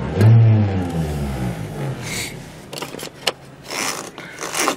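Mazda 6 engine revved with a throttle blip, heard from inside the cabin, its pitch falling back toward idle over about two seconds. Then come several short clicks and scrapes of a plastic dashboard air-vent louver being turned by hand.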